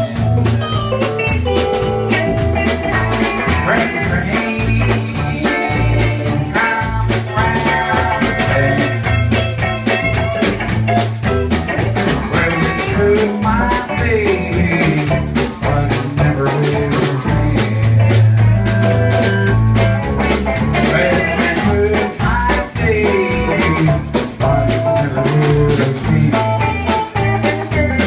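A live blues-rock trio playing: electric guitar, electric bass and drum kit, with a steady drum beat.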